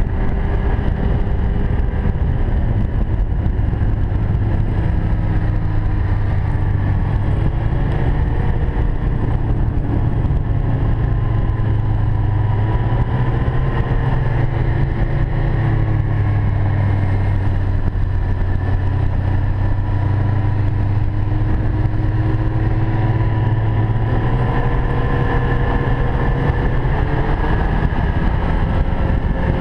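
Ski-Doo Expedition snowmobile's 1200 4-TEC three-cylinder four-stroke engine running steadily at cruising speed along a trail, its pitch rising and falling gently.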